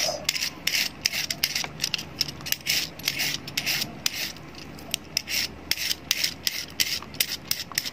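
Vegetable peeler scraping the skin off a raw carrot in quick, repeated strokes, about three a second.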